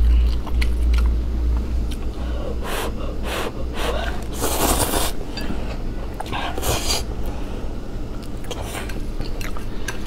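A person slurping noodles: several slurps, the longest just under a second about halfway through, with wet chewing and smacking between, over a low steady hum.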